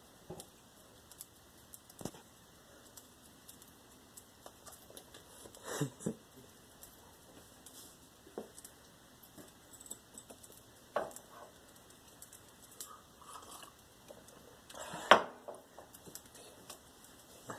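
Budgie cracking and husking seeds with its beak: scattered small clicks and crunches, with two louder knocks, one about six seconds in and one near the end.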